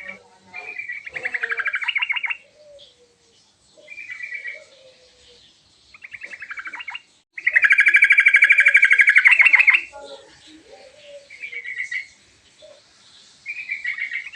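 Yellow-vented bulbul singing in short bursts of fast, chattering notes every couple of seconds, with one long, loud run of rapid notes about halfway through. Fainter, lower bird calls are heard between the phrases.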